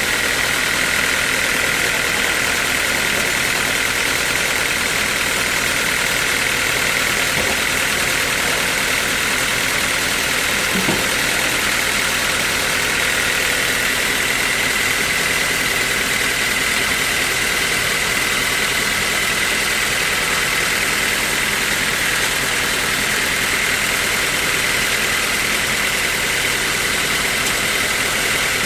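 Sawmill saw machinery running steadily: a constant mechanical noise with a steady high whine over it.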